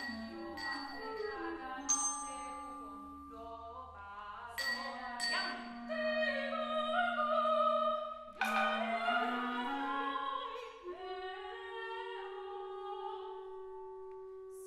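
Contemporary chamber music: two sopranos singing long-word syllables with a clarinet, punctuated by a handful of sharp strikes on kitchen objects used as percussion, glasses struck with a spoon ringing with high tones.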